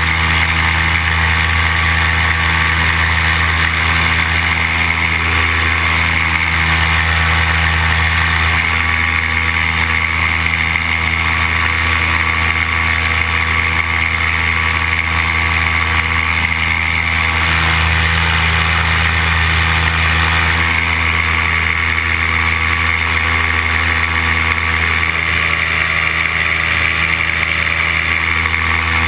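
Paramotor engine and propeller running steadily in flight, a constant loud drone with no change in throttle.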